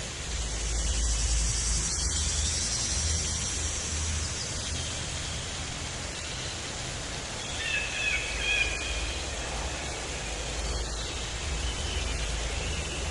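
Tropical forest ambience: a steady rushing noise with a low rumble underneath, and a bird chirping a few times about eight seconds in.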